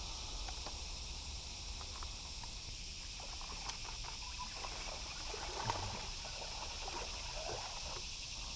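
Steady insect chorus, an even high buzz, over a low rumble, with a few faint clicks and knocks.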